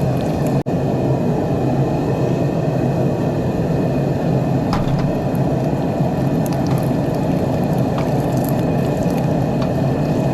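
Forge running with a steady low roar while the knife blades heat for thermal cycling and quenching, with a few faint ticks over it. The roar breaks off for an instant less than a second in.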